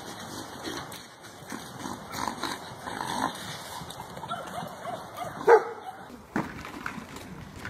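Small animals calling as they chase each other: a quick run of short, high yips near the middle, then one loud cry about five and a half seconds in.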